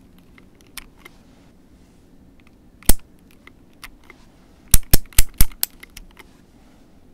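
Clear plastic keycaps being pulled off a mechanical keyboard's switches with a wire keycap puller: sharp plastic clicks and clacks. There is one loud click about three seconds in, then four quick loud clicks a couple of seconds later, with lighter ticks between.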